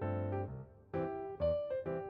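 Background piano music: separate struck notes and chords.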